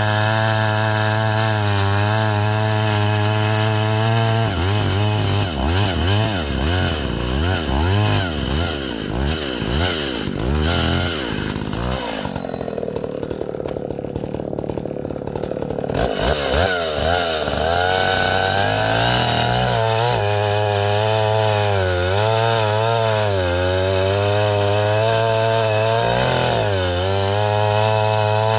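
Vintage Husqvarna L65 two-stroke chainsaw running at high revs and bucking ash firewood, its engine pitch wavering up and down as it loads in the cut and recovers. About twelve seconds in it drops lower and duller for a few seconds, then picks up again.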